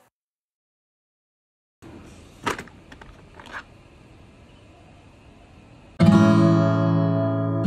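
Acoustic guitar chords strummed and left to ring, starting suddenly about six seconds in, after a silent opening and a few light clicks.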